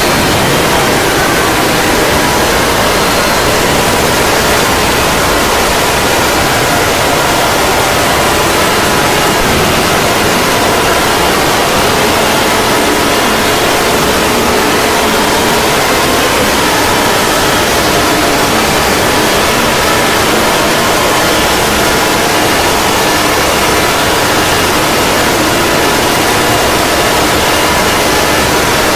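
Loud, unbroken static hiss with faint steady tones and a few slow pitch glides buried beneath it, as used in an emergency alert alarm.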